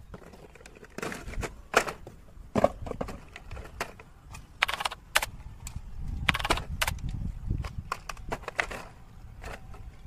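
Hands handling a cardboard box and a plastic remote-control stunt car and its controller: scattered clicks, taps and rustles as the box is opened and the toy taken out. A low rumble swells in the middle.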